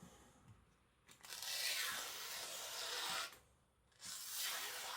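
Freshly sharpened, very thin Chinese cleaver slicing through paper in a cutting test: two long cuts, the first from about a second in to about three seconds, the second starting near the end. The edge goes through cleanly, the sign of a sharp edge.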